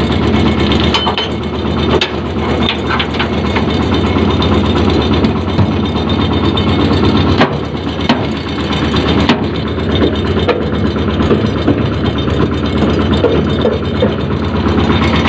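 A tractor engine running steadily, with scattered knocks and rattles over it.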